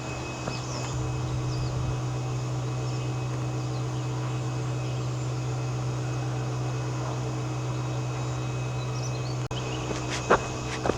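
Outdoor ambience of a steady low hum, with a few faint high chirps and a sharp click near the end.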